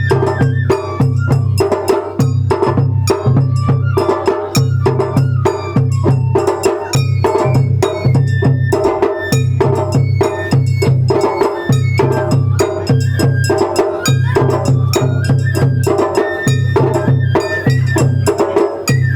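Japanese matsuri-bayashi festival music: taiko drums beating a fast, even rhythm with sharp metallic clicks, under a high bamboo flute melody.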